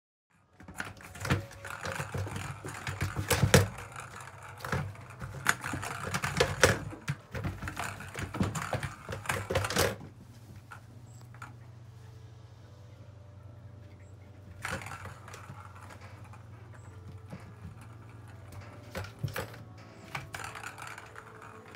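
Plastic balls rattling and clicking around a tiered plastic ball-track cat toy as cats bat at them, in dense bursts of rapid clatter. About halfway through the clatter mostly stops, leaving a faint steady low hum, with a couple more short bursts of rattling later.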